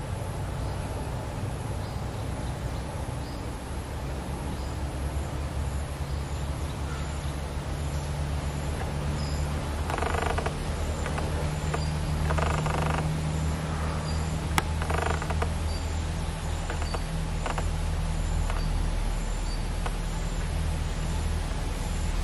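Bulbuls calling at a decoy cage, with two short harsh rattling bursts, one about ten seconds in and another two seconds later. Under them are a faint, regular high ticking and a steady low hum, with a single sharp click soon after the second burst.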